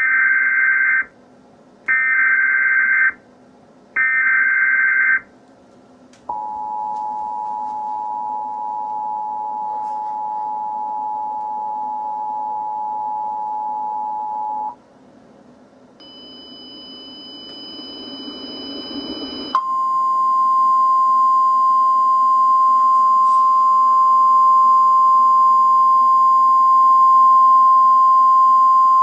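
Emergency Alert System signalling. First come three roughly one-second bursts of the SAME digital header data tones. Then the two-tone EAS attention signal (853 and 960 Hz) is held steadily for about eight seconds. After a short rising noise with high whistling tones, the single steady 1050 Hz NOAA Weather Radio warning alarm tone sounds for about ten seconds.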